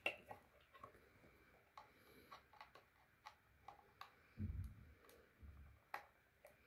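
Faint, scattered clicks and taps of a plastic security camera being handled, with a dull low bump about four and a half seconds in and a softer one a second later.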